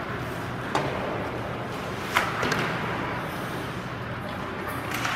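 Ice hockey play: sharp knocks of puck and sticks against the ice and boards, one about a second in and the loudest a little after two seconds followed by a smaller one, over a steady hiss of skating and arena noise.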